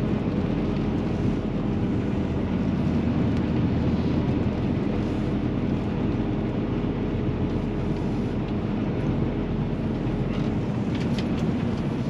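Semi truck's diesel engine running steadily at low speed as the truck creeps through deep mud, with a few light clicks near the end.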